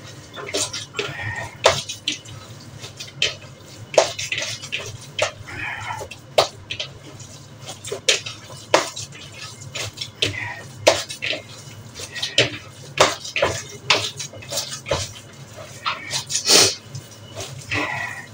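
Hands kneading a wet ground-meat köfte mixture in a bowl: irregular squelches and slaps, with the odd clink of dishes.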